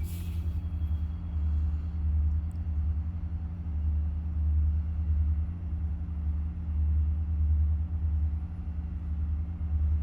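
Low, eerie rumbling drone that swells and fades every couple of seconds over a steady low hum, an unexplained noise like distant train cars that rises and falls rather than staying constant. A brief rustle sounds at the very start.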